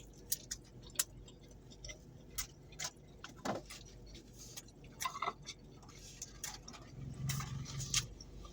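Close-up eating sounds: irregular sharp clicks and smacks while food is chewed, with a short low hum about seven seconds in.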